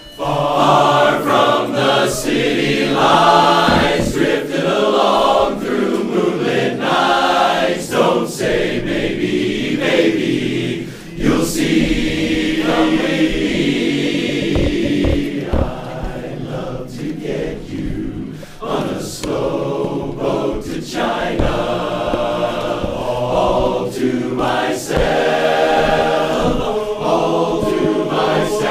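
Large men's barbershop chorus singing a cappella in close harmony.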